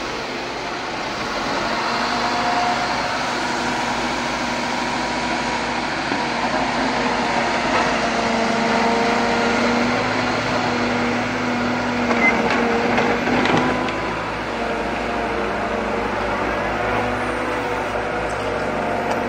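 Liebherr 918 wheeled excavator's diesel engine running steadily as it digs, its note shifting slightly with the work, with a few short knocks a little past the middle.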